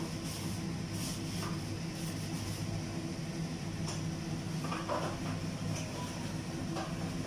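A steady low machine hum and rumble, even in level throughout, with a few faint brief clinks.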